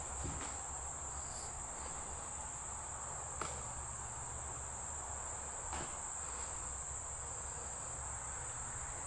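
Steady, high-pitched insect chorus droning without a break, with a couple of faint clicks, one about three and a half seconds in and one about six seconds in.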